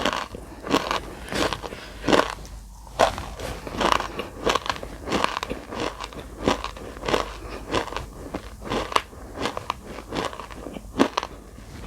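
Dry edible nakumatt clay being bitten and chewed close to the microphone: crisp, crackly crunches in a steady rhythm of about three every two seconds.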